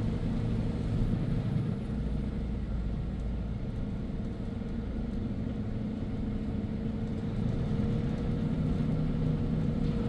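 Truck's diesel engine running steadily at cruise with road rumble, heard from inside the cab.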